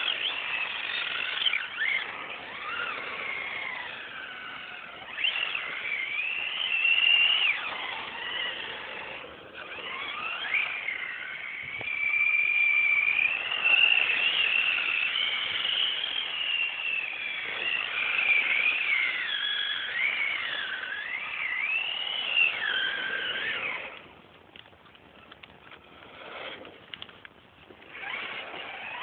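Tamiya TL-01 radio-controlled drift car's electric motor and gears whining, the pitch rising and falling over and over. About 24 seconds in, the whine drops away to faint scattered noises.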